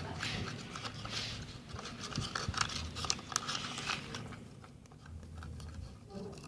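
Sticky slime mixture being stirred and worked, a run of irregular wet clicks and squelches that thins out after about four seconds.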